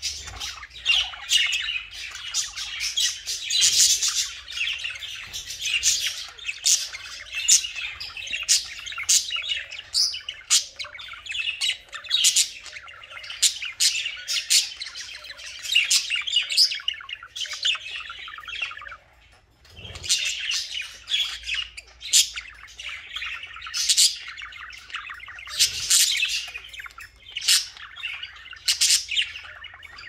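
Budgerigar chattering and warbling: a rapid, continuous run of chirps and harsh squawks, with a short pause about two-thirds of the way through.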